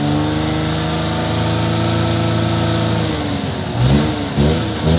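Suzuki Multicab engine running steadily, now without the misfire after a bad spark plug was replaced. In the last second or so the pitch dips and rises a few times in quick throttle blips.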